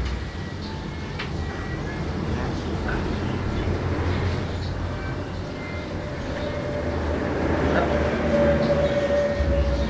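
Steady low rumble of vehicle noise that slowly builds, with a held pitched tone joining about seven and a half seconds in.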